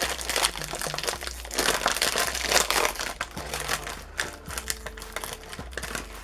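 Snack packet crinkling as it is opened and handled, heaviest for the first three seconds or so, then lighter, sparser rustling.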